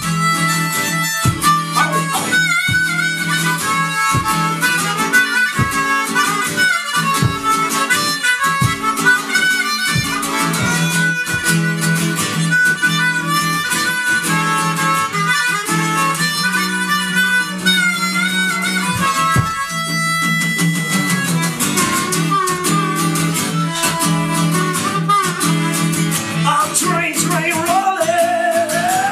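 Blues harmonica solo, cupped against a vocal microphone, with bending, wavering notes over a steady strummed acoustic guitar rhythm.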